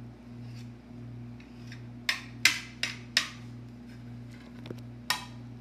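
A table knife cutting meatball pieces on a ceramic plate, its blade knocking sharply against the plate several times between about two and five seconds in. A steady low hum runs underneath.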